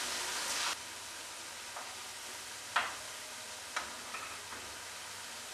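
Shredded-potato snacks deep-frying in hot oil: a steady sizzle that drops suddenly about three-quarters of a second in. A few sharp clicks of a metal skimmer knocking against the pan follow, the loudest about halfway through.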